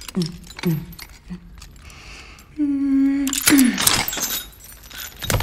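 Metal chains and cuffs rattling and clinking as they are worked loose by hand, loudest in a dense run of clinking in the second half. Three short falling grunts of effort come near the start, and a brief steady tone sounds a little before the middle.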